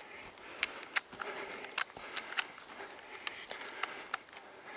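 Footsteps through dry grass and leaf litter, with twigs snapping underfoot in sharp, irregular cracks, about eight of them.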